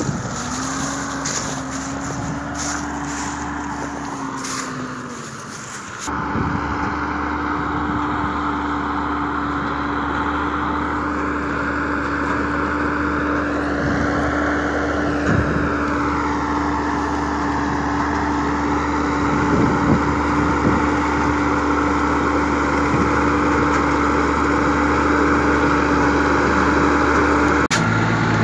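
Deutz-Fahr Agrotron 130 tractor's diesel engine running steadily under load as it pulls a Grimme SE 260 potato harvester through the rows, with a steady whine over the engine. Wind buffets the microphone for the first few seconds. Near the end the sound switches abruptly to the lower drone of a tractor cab interior.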